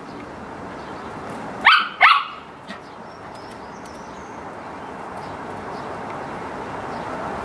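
Samoyed puppy giving two short, rising barks close together about two seconds in, over steady background noise.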